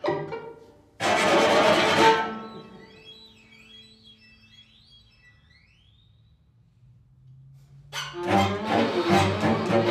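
String quartet of two violins, viola and cello. About a second in comes a loud, noisy full chord lasting about a second and dying away, then a quiet stretch of faint high notes sliding up and down over a low held note. About eight seconds in the whole quartet comes back loud and busy.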